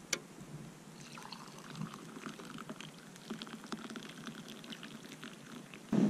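Hot drink being poured from a tin can pot into a mug: a steady trickle of liquid for a few seconds. A brief low thump comes at the very end.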